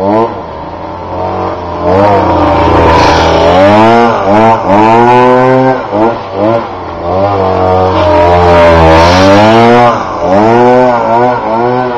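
Goped G2D Sport stand-up scooter's small two-stroke engine riding past close by, its pitch climbing and dropping repeatedly as the throttle is blipped. It is loudest through the middle as it passes and is still heard as it moves away near the end.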